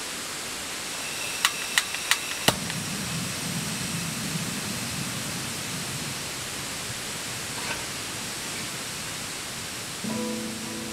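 Steady hiss of cooking on a camp stove, with four sharp clicks of a utensil against the pan about a second and a half in. Background music with guitar and piano notes begins near the end.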